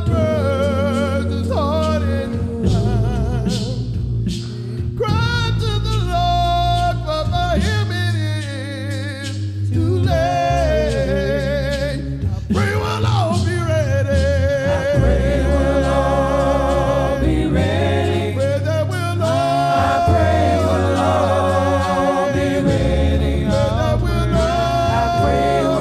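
A cappella gospel singing: slow held notes with vibrato.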